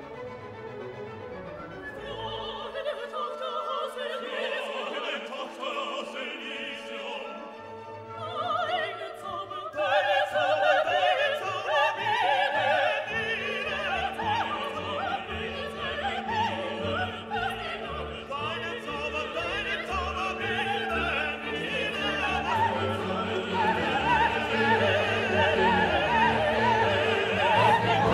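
Background classical music: operatic singing with an orchestra, growing louder about ten seconds in.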